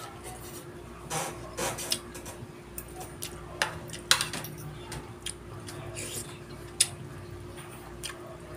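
Metal fork and spoon clinking and scraping against a plate and a soup bowl while eating, in scattered sharp clicks; the loudest comes about four seconds in and another near seven seconds. A steady low hum runs underneath.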